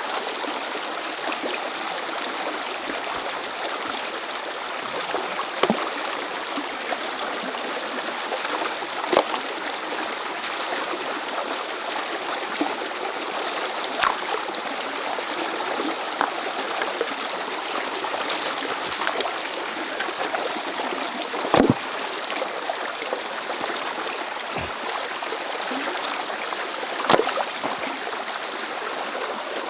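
Shallow rocky stream running steadily over stones, with several sharp knocks and splashes from rocks being handled and moved in the water, the loudest a little past the middle.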